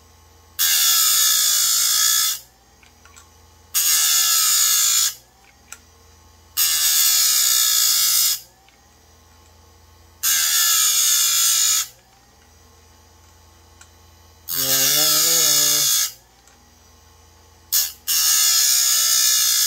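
Bench-mounted electric chain grinder taking down the rakers on a chainsaw chain: the grinding wheel bites the steel in about seven short passes of one to two seconds each, with the motor's low hum between passes.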